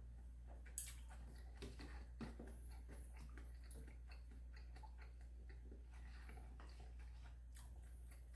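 Quiet eating: scattered small clicks and taps of utensils and soft chewing, the sharpest clicks about a second in and a little after two seconds, over a steady low hum.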